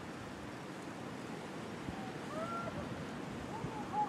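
Steady wind noise, with a few faint distant calls a little past halfway and again near the end.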